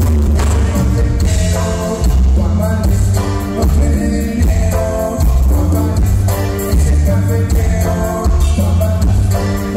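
A live Latin band playing loud through a PA: button accordion, electric bass, drum kit and congas, with a heavy bass line and singing.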